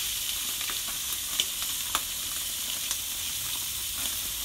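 Chicken thighs sizzling steadily on a hot gas grill grate, a constant hiss with scattered small pops and crackles of fat.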